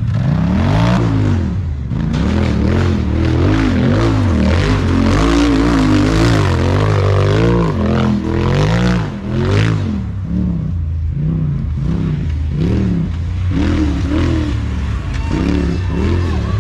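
A side-by-side race car's engine revving up and down over and over, about once a second, as it is raced. Knocks and rattling sound over the engine.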